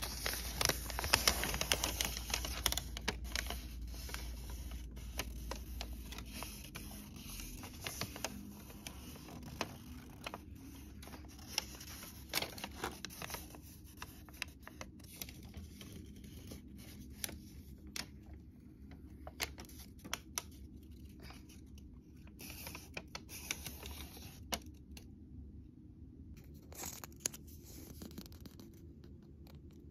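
Paper and packaging being handled: rustling and crinkling of a toy pack's paper insert, with many small clicks and scrapes, busiest in the first half.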